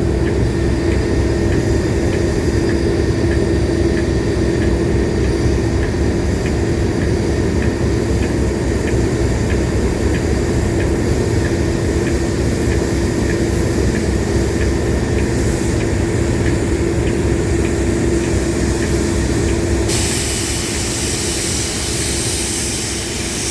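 Train running: a steady low rumble with an even hum over it, changing abruptly near the end.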